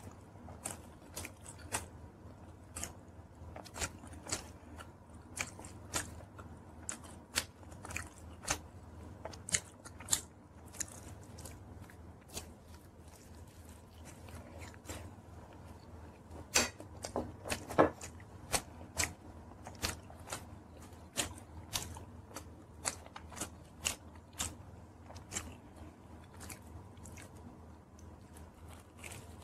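Close-up eating sounds of a person biting and chewing pizza: a string of sharp mouth clicks and crunches, busier and louder for a few seconds a little past halfway.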